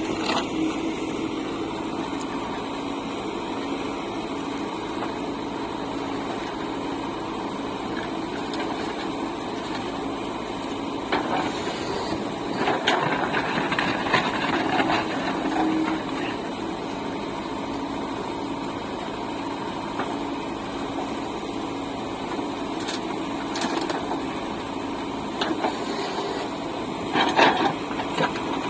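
Diesel engine of a backhoe loader running steadily while digging and loading mud, with a constant hum. There are louder clattering spells about halfway through and again near the end.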